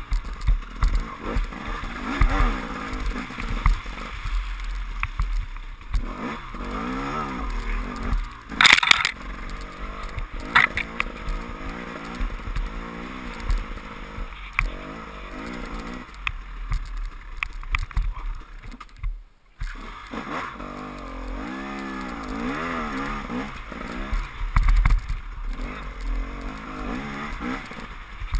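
KTM enduro motorcycle engine revving up and down as the bike is ridden hard along a muddy, rutted trail, with knocks and scrapes from the ground. A short loud rush of noise comes about nine seconds in, and the engine note drops away for a moment about two-thirds of the way through.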